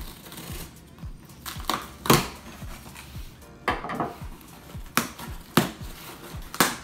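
A knife slicing the tape on a cardboard box, then the box being handled and its flaps pulled: a run of sharp scrapes and knocks, the loudest about two seconds in. Background music with a steady beat runs underneath.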